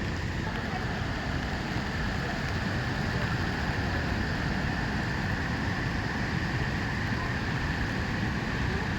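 Duduma Waterfall's falling water, a steady rushing noise that does not change.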